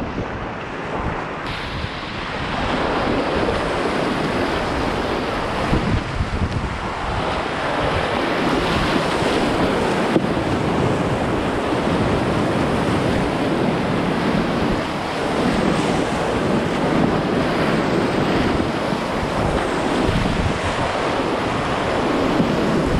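Whitewater rapids rushing and splashing against a whitewater kayak's hull as it runs down a rocky river, heard close up and steady.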